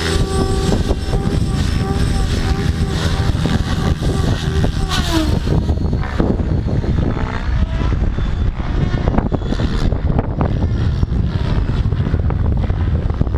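Radio-controlled helicopter in flight, its rotor and motor whine wavering and gliding in pitch as it manoeuvres, over a heavy low rumble of wind on the microphone.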